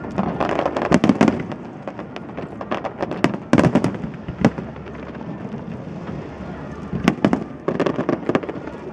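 Fireworks display: aerial shells bursting in quick, irregular bangs with crackling between them, the densest clusters about a second in, around the middle, and near the end.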